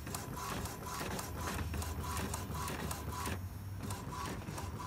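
Epson ink-tank inkjet printer printing a nozzle check pattern after a head cleaning: the print-head carriage shuttles with rapid clicking over a steady motor hum. The clicking pauses briefly about three and a half seconds in.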